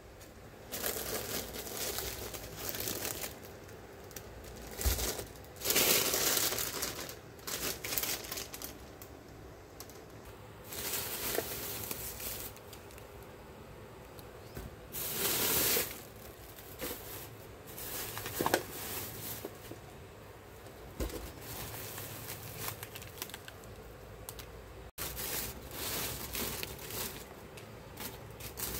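Plastic shopping bags rustling and crinkling as hands rummage through them and pull items out, in irregular bursts with a few louder crinkles.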